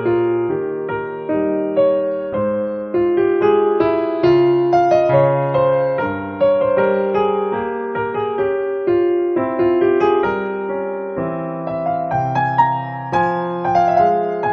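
Background piano music, single notes and chords struck one after another and left to ring away.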